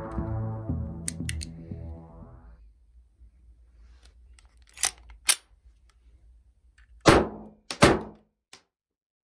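Two sharp clicks as the pistol is handled, then two loud shots about a second apart from a Weihrauch HW 94 blank pistol firing 9 mm P.A.K. blank cartridges, each with a short ringing tail.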